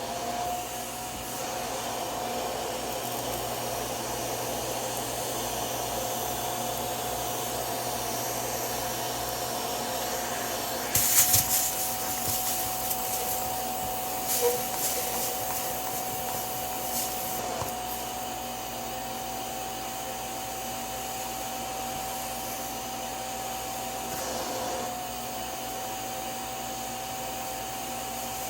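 Bissell Little Green Max Pet spot cleaner running, its suction motor holding a steady whine. About 11 seconds in there is a brief, louder hiss.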